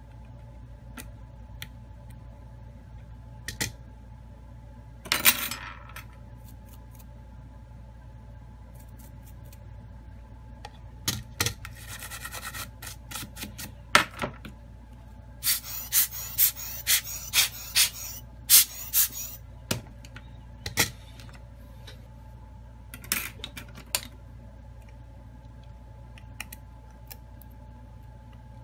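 Handling noise from a smartphone's frame and parts being worked by hand on a silicone repair mat: scattered small clicks and taps, with rubbing and a run of quick crackling scrapes about halfway through. Under it all is a steady low hum.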